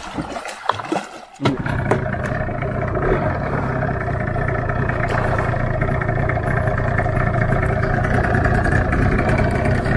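A few short knocks, then a small boat's engine starts about a second and a half in and runs steadily.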